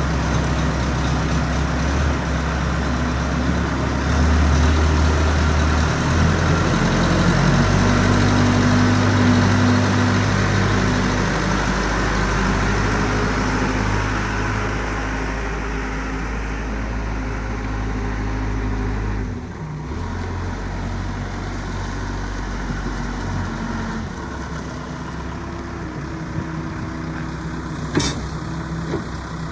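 Diesel engine of a Case 580L Series 2 backhoe loader running, its speed shifting a few times before it settles lower about two-thirds of the way through. A single sharp click near the end.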